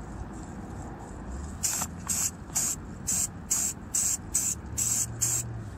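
Aerosol spray can of silver paint hissing in short, evenly spaced bursts, about nine of them at two or three a second, starting about a second and a half in, as a covering coat goes on.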